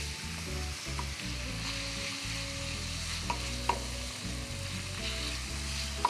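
Garlic, green coriander and sliced black olives sizzling in olive oil in a steel pan while being stirred, with a few sharp clicks of the stirring utensil against the pan.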